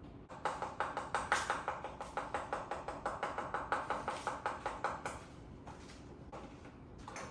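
Rapid, even clicking, about six or seven clicks a second, that goes on for about four and a half seconds and then stops.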